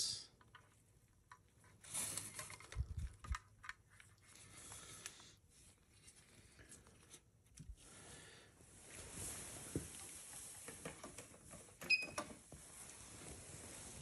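Faint handling sounds of a split mechanical keyboard: scattered light clicks and knocks as its halves are picked up, turned and set down, with a few sharper clicks near the end.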